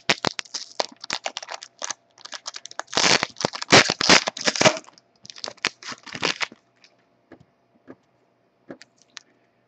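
Trading cards and crinkly packaging handled by hand: a run of crackles and crinkles, densest about three to five seconds in, then tapering to a few light clicks.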